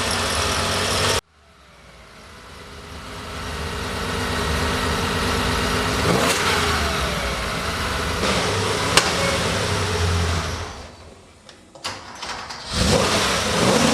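A car engine running, with the revs rising and falling. It cuts off abruptly about a second in, fades back up over the next few seconds and dips again near the end.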